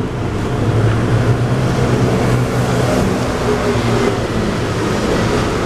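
Steady, loud background rumble with a low droning hum and a hiss, the sound of running machinery or engine noise.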